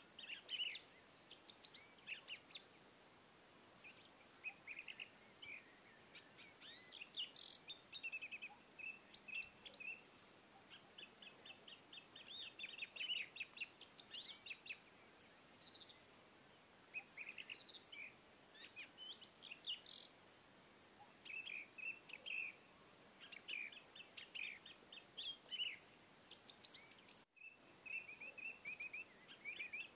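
Songbirds chirping and trilling, with quick runs of repeated high notes and short falling calls, from a background nature sound-effect track. The track cuts out for an instant about three seconds before the end.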